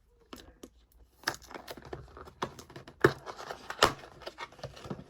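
Cardboard packaging being pulled and torn by hand, with irregular crinkling and a few sharp snaps, the loudest two about three and four seconds in.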